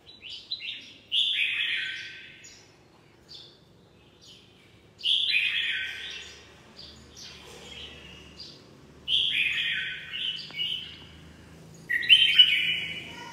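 Red-whiskered bulbul singing: four loud warbled phrases about every three to four seconds, each stepping down in pitch, with short chirps between them.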